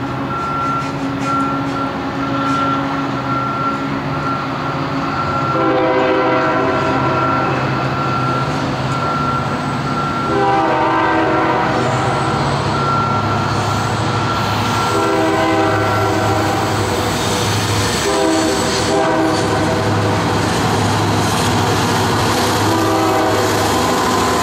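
Horn of a Union Pacific SD90/43MAC diesel locomotive, sounded in a series of long blasts starting about five seconds in, with a short one near the end. Underneath is the steady rumble of the diesel locomotives running past.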